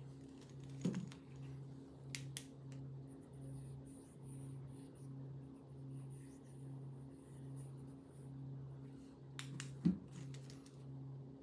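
Scattered light clicks and taps of pens and snake eggs being handled and set down on a table, the loudest a knock about ten seconds in, over a faint low pulsing hum.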